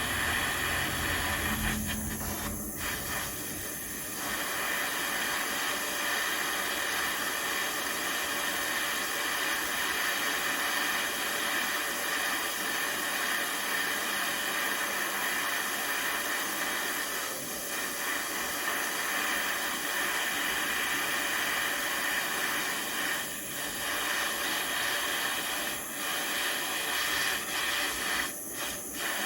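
Gas torch flame hissing steadily while heating a bent steel steering rod, dipping briefly a few times.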